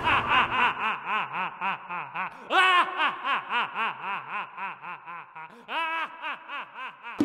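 A man's long, sinister horror-villain laugh: a run of 'ha's at about four a second. It swells louder near the middle and again later, then breaks off at the end.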